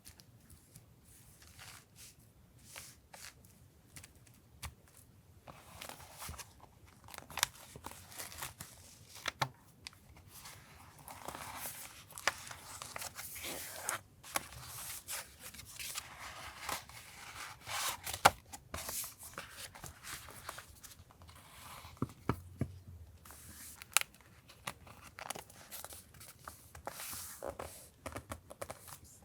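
Paper and stickers being handled for journal collage: tearing, peeling and crinkling paper, with sharp taps and clicks now and then.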